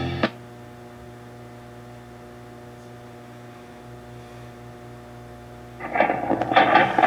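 Zenith AA5 tube radio's speaker giving a steady mains hum with no station tuned in, after music cuts off abruptly. About six seconds in, a talk station's voice comes in.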